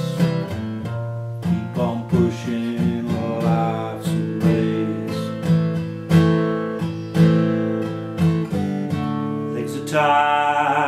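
Dreadnought acoustic guitar played solo in an instrumental break of a song, with chords struck about once a second. A man's singing voice comes back in near the end.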